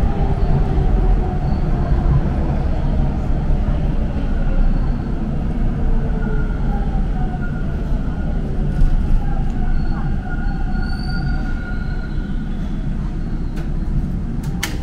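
TTC Line 2 subway train running and slowing into a station: a steady rumble of wheels on rail, with whining motor tones that glide in pitch as it brakes. A single sharp click comes near the end.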